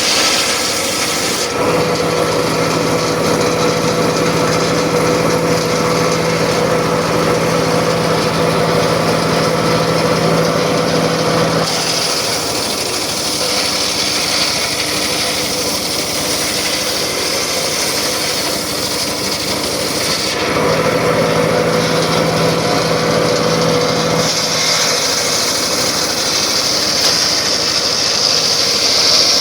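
Circular saw running and cutting wood. The sound shifts back and forth between two states: spells with a steady low hum, and spells where a bright high hiss takes over.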